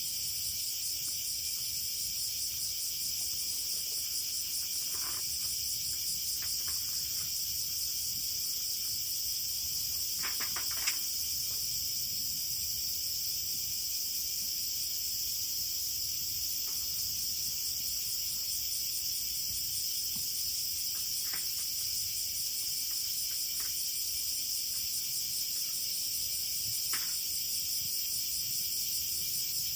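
A steady, high-pitched chorus of chirping insects, with a few faint short clicks or chirps here and there.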